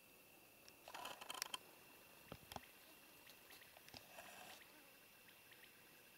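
Faint camera-handling noise: a brief rustle of clicks about a second in, two or three sharp knocks, and another short rustle as the camera is swung, over a faint steady high-pitched tone.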